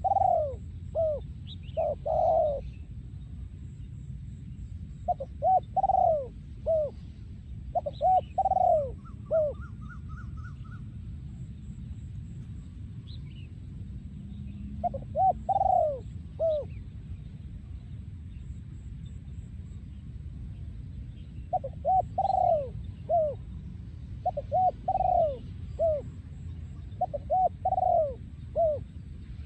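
Male spotted dove cooing: short phrases of three or four low, fluting coos, repeated about seven times with pauses of a few seconds between, over a steady low background rumble. A faint high twitter from another small bird comes briefly in the middle.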